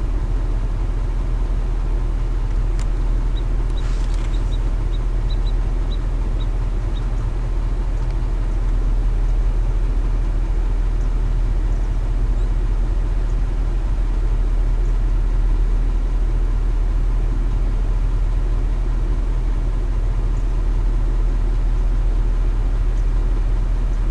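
Steady low rumble of wind on the microphone, with a short run of faint high ticks about three to seven seconds in.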